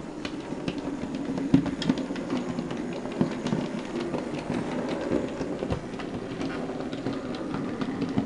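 Hornby OO gauge K1 class model steam locomotive running along the track: a steady electric motor hum with frequent sharp clicks as the wheels cross rail joints and points.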